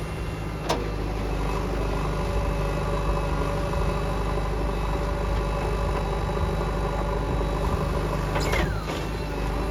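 Heavy diesel engine running steadily. There is a sharp knock under a second in, and near the end a couple of knocks with a short falling squeak.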